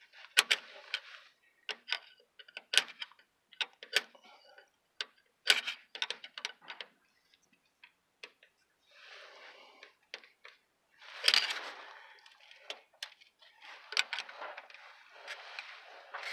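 Hand work on a truck's tailpipe while an exhaust clamp patch is fitted: irregular sharp metallic clicks, then longer scraping and rustling noises in the second half.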